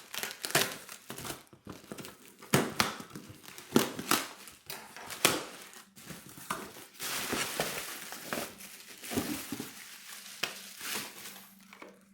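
Packaging being handled and unwrapped: irregular crinkling and rustling with sharp crackles, busiest in the middle of the stretch.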